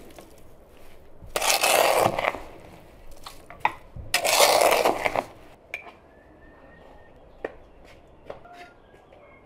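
A metal spoon stirring raspberries and sugar in a metal bowl, in two bursts of rough scraping about a second long each. Near the end, a few light clinks of a spoon against a glass jar.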